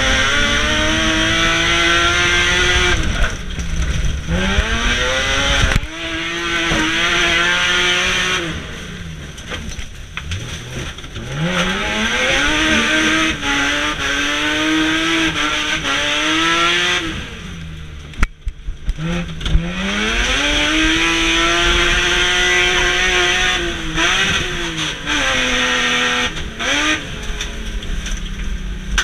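BMW E36 Compact's M3 straight-six engine heard from inside the cabin under hard racing use, its pitch climbing and dropping again and again through gear changes and lifts off the throttle. About two-thirds in the engine note falls away briefly and a few sharp knocks come through.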